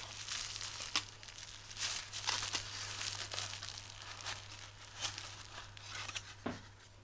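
Bubble wrap crinkling and crackling in irregular bursts as it is handled and pulled out of a small cardboard box, with a few light clicks of the box flaps.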